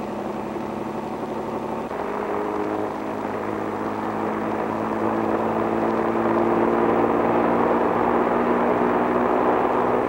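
Early Bell helicopter's piston engine and rotor running up, a steady engine note that steps up in pitch about two seconds in and grows louder as the helicopter lifts off into a hover.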